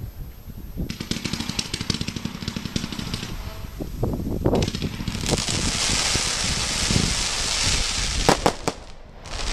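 Heaven's Gate (Lidu Titanic Blink) fireworks battery firing shot after shot: repeated launch thumps under a dense crackling fizz from the bursting stars. The fizz is heaviest in the second half, with a few sharper bangs near the end.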